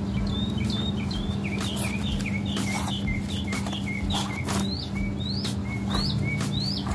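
A bird calling over and over, short rising chirps about twice a second, above a steady low hum. A few faint clicks from a bicycle tire being worked off its rim.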